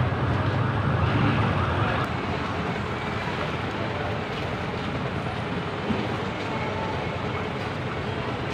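Busy street traffic noise: vehicle engines running, loudest over the first two seconds as a low hum, then settling into a steady background of street noise.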